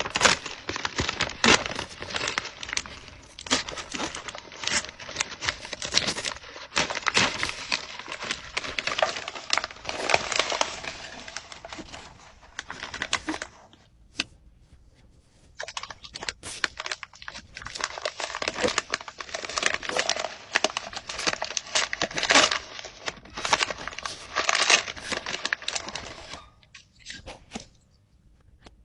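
A package being torn open and crinkled by hand: long stretches of irregular tearing and rustling, with a short pause about halfway through.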